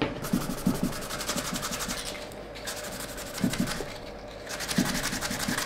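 Small metal part of an automaton mechanism being rubbed by hand with folded abrasive paper in quick back-and-forth strokes, with a short pause midway, to clean off hardened superglue.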